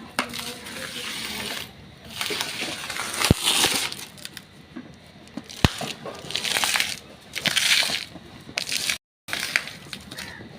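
Cats fighting: repeated bursts of rough scuffling noise, with a few sharp clicks between them.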